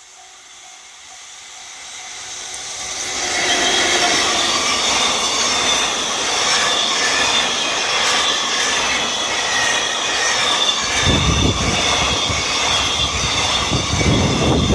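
JNR EF65 electric locomotive and its train approaching and running past a level crossing. The rail noise swells over the first few seconds, then holds steady. About eleven seconds in, a heavy low rumble of wheels on the rails joins it.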